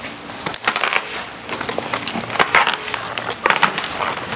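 The old vinyl soft top and plastic window of a Geo Tracker being torn off by hand: irregular ripping and crackling of brittle material, one pull after another.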